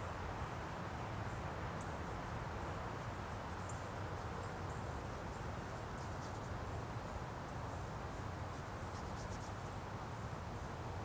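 Outdoor ambience: a steady low rush with faint, scattered high chirps throughout.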